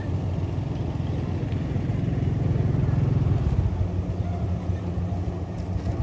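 An engine running steadily: a low, pulsing drone that grows a little louder around the middle.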